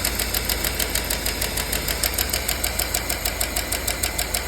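Chevrolet 5.3 L LS V8 idling with a fast, even ticking, the sign of a bad lifter on the first cylinder.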